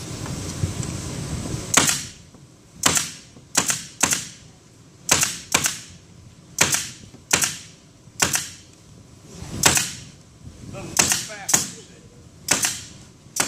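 Pneumatic brad and staple gun firing inch-and-a-quarter staples into wooden beehive frames, about fourteen sharp snapping shots, often two in quick succession, each with a short hiss of air.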